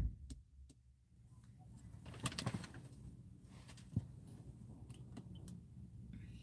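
Quiet car cabin: a faint low hum with a few soft clicks and knocks, the clearest about two seconds in and again near four seconds.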